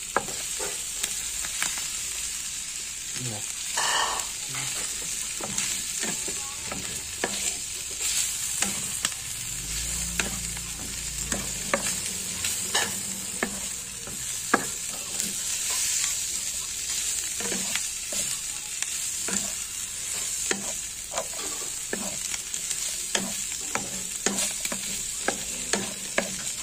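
Strips of meat in red paste sizzling in a frying pan while being stir-fried, with the spatula scraping and tapping against the pan many times.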